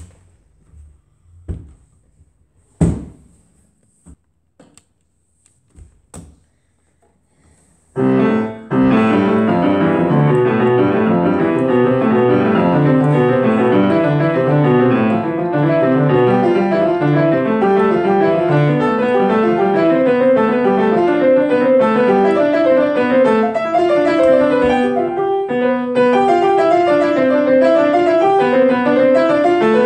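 Grand piano played in fast, even scale exercises, runs of notes going up and down the keyboard in both hands, starting about eight seconds in. Before that there are a few scattered knocks and thumps, the loudest nearly three seconds in.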